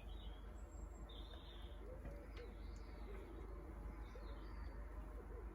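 Faint birds chirping, short calls every second or so.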